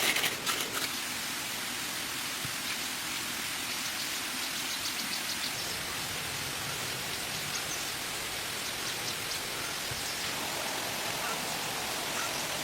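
Steady hiss of falling water, with a few light clicks about a second in.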